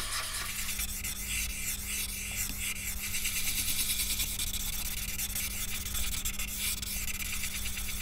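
Paper smudge stick (blending stump) rubbing graphite across drawing paper in repeated semicircular strokes, a continuous soft hiss that swells and fades with each stroke.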